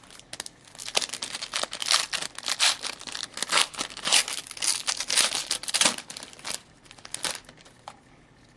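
Foil wrapper of a trading-card pack being torn open and crinkled in the hands, a dense crackle lasting about seven seconds that fades out near the end.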